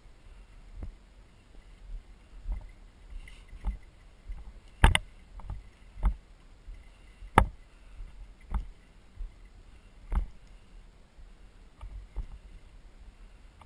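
A climber's boots stepping along a granite ridge: irregular thumps and knocks about once a second, with two sharper ones near the middle.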